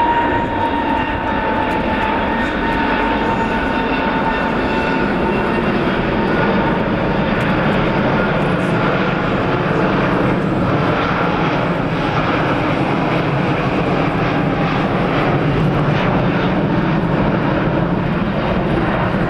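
Airbus A380's four Rolls-Royce Trent 900 turbofans during a slow flypast: a steady jet rumble, with an engine whine that falls slightly in pitch in the first seconds.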